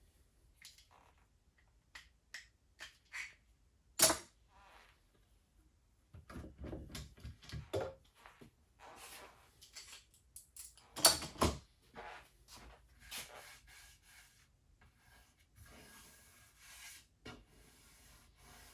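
Scattered knocks, clicks and clunks of things being handled, with two sharp, loud knocks about four and eleven seconds in.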